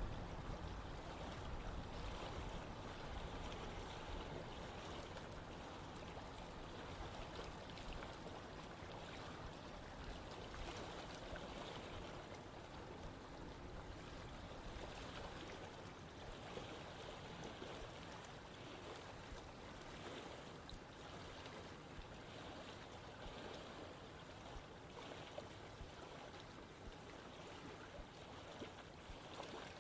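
Steady rush of running water from a stream, an even hiss and babble with no distinct splashes, a little louder in the first few seconds.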